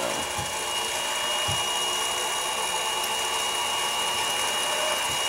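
Drill spinning a 60-degree countersink to chamfer the edge of a drilled and tapped hole: a steady motor run with a thin high whine.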